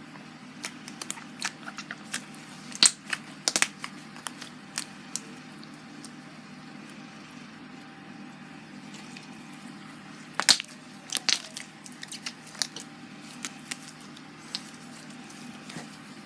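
Homemade glue slime being squeezed and kneaded by hand, giving irregular wet clicks and pops, in clusters and then sparser, over a steady low hum.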